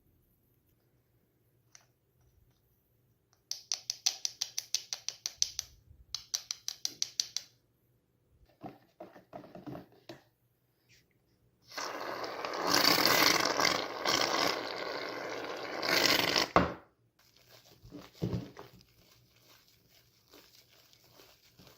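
Slime being handled: a quick run of sharp clicking pops lasting about four seconds, then, about halfway through, a louder crackling noise lasting about five seconds, fading to faint crackles near the end.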